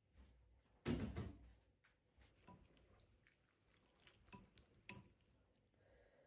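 Quiet eating sounds at a table: small clinks and taps of wooden chopsticks and a metal spoon against a porcelain soup bowl, with one louder knock about a second in.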